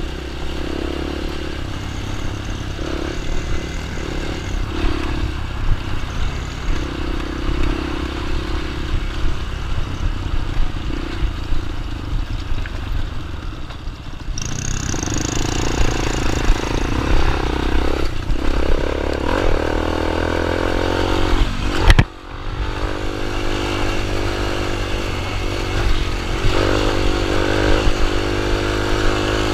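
Small dirt bike engine running, its pitch rising and falling as it is revved, more in the second half. One sharp knock about two-thirds of the way through.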